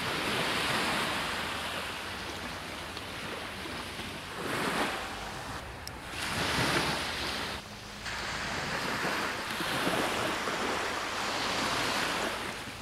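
Sea waves breaking and washing up the beach, in surges that rise and fall every few seconds.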